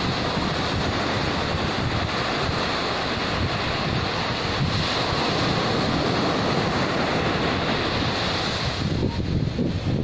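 Surf breaking and washing up a sandy beach in a steady rush, with wind buffeting the microphone. The hissing wash thins out briefly near the end.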